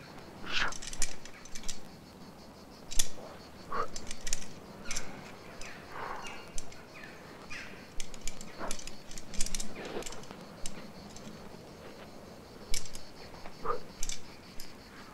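A rock climber moving up a cliff: scattered short clinks and scrapes of the carabiners and gear on his harness and of hands and shoes on the rock, coming irregularly.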